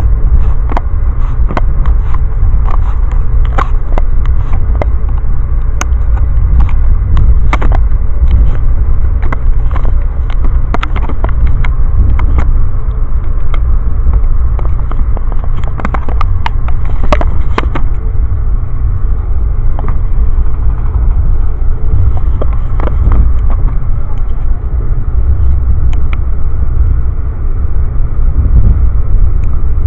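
Amtrak passenger train running at speed, heard inside the coach: a loud, steady low rumble with frequent sharp clicks and rattles, which thin out about two-thirds of the way through.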